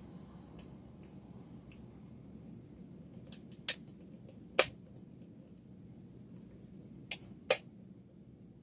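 Lock pick and tension wrench working inside a pin-tumbler padlock: scattered small, sharp metal clicks, with one loud click a little past halfway and two more close together near the end.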